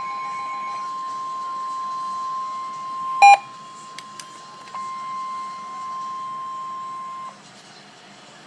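Emergency Alert System attention tone for a severe thunderstorm warning: a steady high electronic tone, with a second, lower tone under it that stops about a second in. About three seconds in comes a loud short beep, then two faint clicks, and the tone cuts off shortly before the end.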